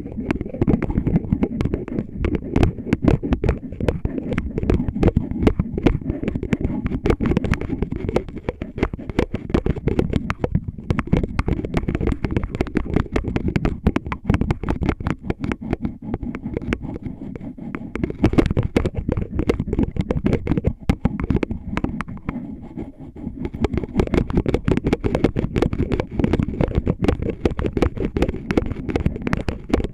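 Rapid, dense scratching and tapping on an oil bottle, a close, crackly stream of small clicks and scrapes that eases off briefly twice.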